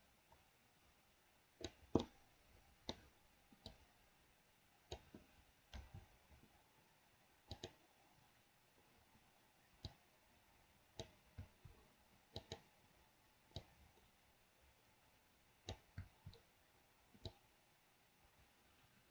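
Faint, irregular clicking of a computer mouse, some clicks in quick pairs.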